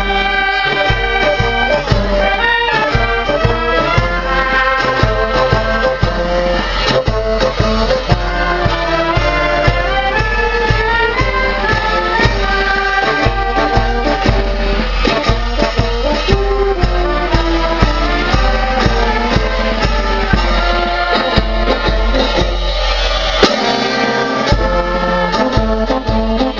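Maltese street marching band playing live: clarinets and euphoniums carry the melody over a steady beat of bass drum, hand cymbals and snare drum.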